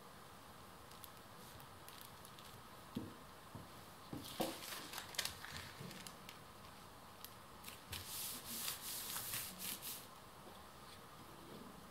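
Thin paper sandwich bags rustling and crinkling as they are handled by hand, laid onto a stack and smoothed flat. There is a light knock about three seconds in, then two spells of rustling.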